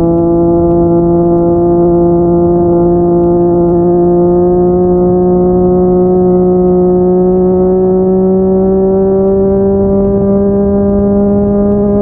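Yamaha MT-09's three-cylinder engine through a Yoshimura R55 slip-on exhaust, running under steady throttle, its pitch climbing slowly and evenly with no gear change.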